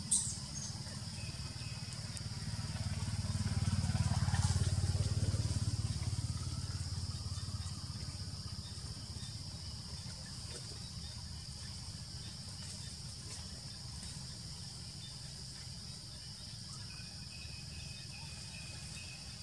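Outdoor ambience: a steady high insect drone, with a low rumble that swells about three seconds in and fades away a few seconds later. There is a brief click at the start.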